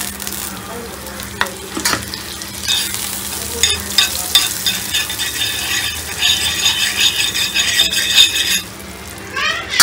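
Butter melting and sizzling on a hot iron tawa while a spoon scrapes and spreads it across the pan. The scraping strokes come quick and busy through the middle, then ease off, leaving the sizzle.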